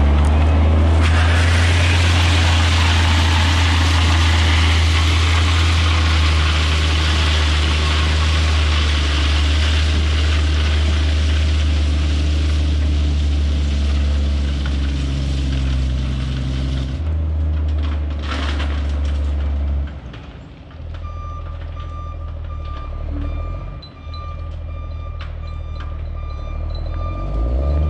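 Dump truck's diesel engine running loud as the truck pulls past close by, then dropping away as it drives off. About two-thirds of the way in, its backup alarm starts beeping at a steady, even pace as it reverses.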